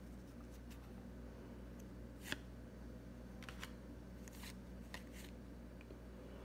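2022 Topps Update baseball cards flipped through by hand, each card slid off the front of a stack to the back: faint, scattered flicks and clicks of card stock, one a little louder a bit over two seconds in, over a low steady hum.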